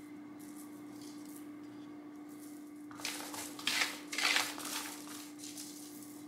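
Roasted chickpeas being tossed by hand on a foil-lined baking sheet: the foil crinkles and the chickpeas rustle in a few short bursts, starting about three seconds in, over a faint steady hum.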